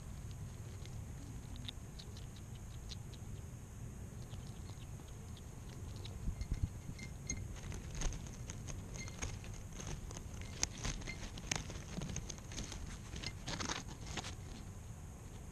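European hedgehog rummaging right at the microphone: a patter of small, irregular clicks and rustles, sparse at first and then denser and louder through the second half.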